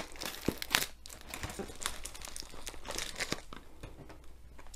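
Plastic packing tape crinkling and tearing as it is peeled off a cardboard box by hand, in irregular crackles that are busiest in the first second.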